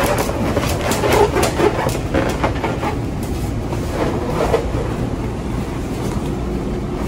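Latex balloons being handled and pressed together into a garland cluster, rubbing against each other in many short, irregular strokes, over a steady low rumble.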